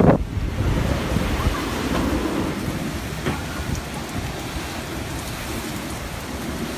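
Typhoon-force wind and rain: an even rushing noise that eases a little after the first second.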